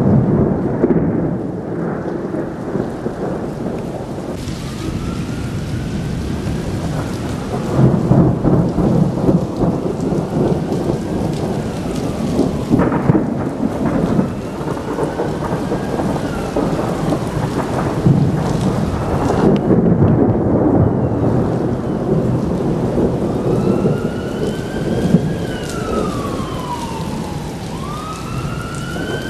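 Thunder rumbling almost without pause, swelling and easing, with a few sharper cracks, over steady rain. A siren wails through it, its pitch rising and falling again and again and growing louder near the end.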